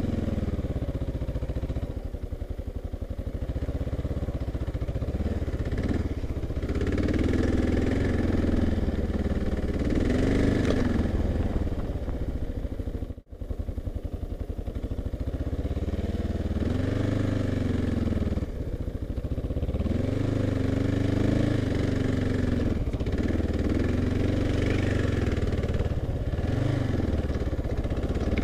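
Kawasaki KLR650's single-cylinder four-stroke engine pulling along a dirt trail, its pitch rising and falling over and over as the throttle is opened and closed. The sound drops out for an instant about thirteen seconds in.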